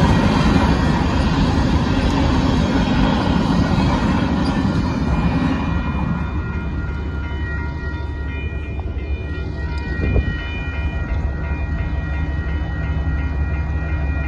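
Freight cars of a Union Pacific local train rolling past a grade crossing, a loud rumble that dies away about six seconds in. The crossing's warning bell then rings on steadily while the gates stay down.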